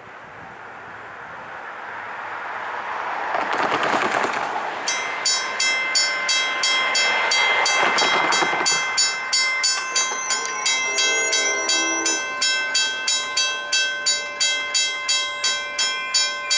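Road vehicles pass over the crossing in the first few seconds. About five seconds in, the railroad crossing's warning bell starts ringing, dinging steadily about twice a second, the signal that a train is approaching.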